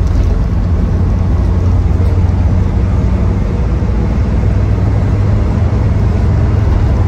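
Inside the cab of a 2003 Land Rover Defender 90 Td5 on the move: the 2.5-litre five-cylinder turbodiesel running steadily at cruising speed, with a low hum mixed with road and wind noise.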